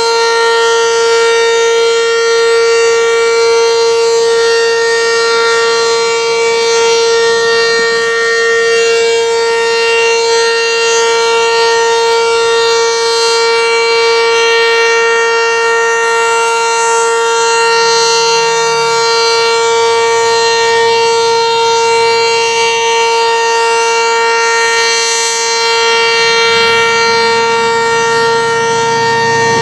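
ACA Banshee 10-horsepower outdoor warning siren sounding for its weekly test, holding one steady high pitch.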